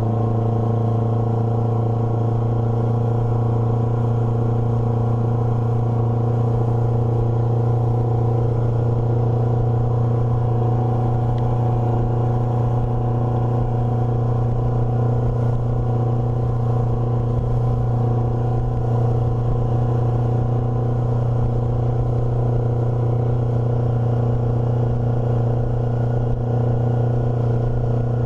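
Motorboat engine running at a steady speed, a constant low hum with a rumble underneath.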